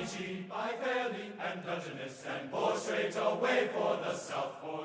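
Background music of chanting voices over a steady low drone.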